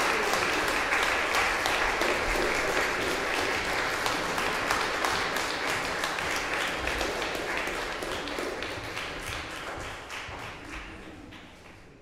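Audience applauding, dense clapping that thins out and fades away over the last few seconds.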